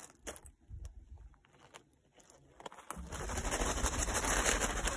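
Footsteps on loose volcanic gravel, faint separate crunches at first. About three seconds in, a louder steady rushing noise, strongest in the lows, comes in over them.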